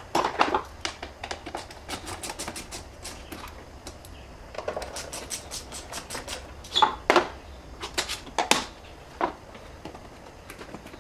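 Clicks, ticks and knocks of hands working the plastic air-intake hose, hose clamps and mass air flow sensor on a BMW S62 V8, sped up, with runs of quick ticks and a few louder knocks.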